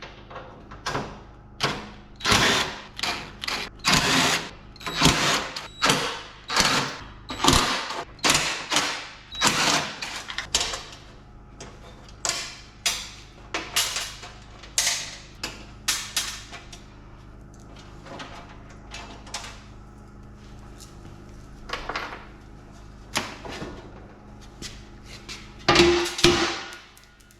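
Hand tools working on a steel control-panel housing: a run of sharp metallic knocks, about two a second, then scattered single knocks over a faint steady hum.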